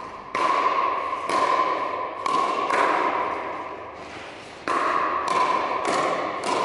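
Pickleball paddles striking the plastic ball in a fast rally, about eight sharp pops at uneven spacing with a pause in the middle, each ringing out in the echo of a large hall.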